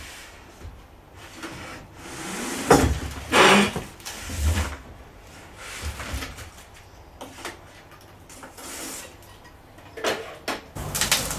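Cardboard packaging scraping and rustling with knocks as a Creality Ender-5 Plus 3D printer's electronics base is lifted out of its shipping box and moved. The louder scrapes and knocks come about two and a half to five seconds in and again near the end.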